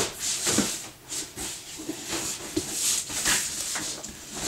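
Large cardboard box being turned over and handled, its surfaces rubbing and scraping in irregular rustles, with a few light knocks.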